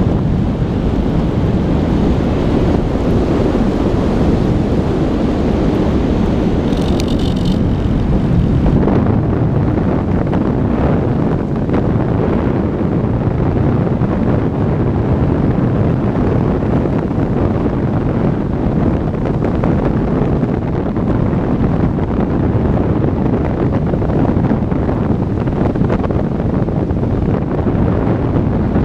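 Steady rush of wind buffeting the microphone of an onboard camera on a radio-control model aircraft in flight. A brief high-pitched tone sounds about seven seconds in.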